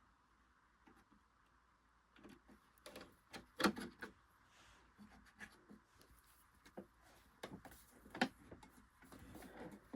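Scattered faint clicks and light knocks of a screwdriver working out the housing screws of a Singer Genie sewing machine and of the machine being handled, the loudest knock about three and a half seconds in.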